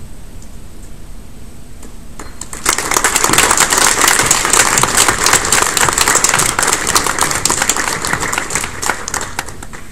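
Audience applauding: the clapping starts about two and a half seconds in, holds for several seconds, and tails off near the end.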